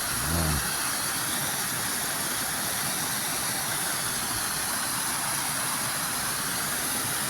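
Steady rushing of river water, an even hiss-like noise at a constant level.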